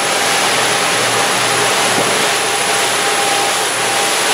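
Steady rushing noise of a 48-foot Cabo sportfishing boat underway, heard from its open flybridge: engine drone mixed with wind and water, with a faint low hum under it.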